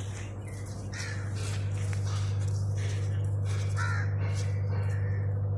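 Crows cawing in short harsh calls, on and off, over a steady low electrical-sounding hum.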